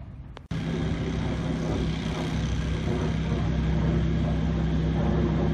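A steady engine drone with one unchanging low pitch, starting abruptly about half a second in.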